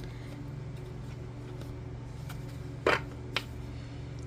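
Tarot cards being handled: two sharp card snaps or taps about three seconds in, the first louder, over a steady low hum.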